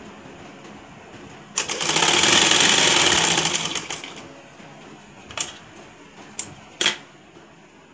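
Domestic sewing machine running in one burst of about two and a half seconds, stitching the folded hem of net fabric. It starts about a second and a half in with rapid, even strokes and slows off, followed by a few short, sharp clicks.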